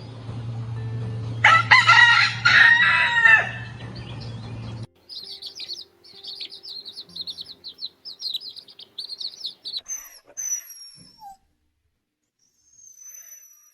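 A rooster crows once, a call of about two seconds over a steady low hum. It is followed by a rapid run of high-pitched bird chirps, then a few thin, falling whistles near the end.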